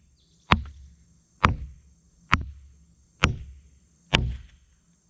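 A hammer driving a form stake into the ground: five evenly spaced blows, a little under one a second.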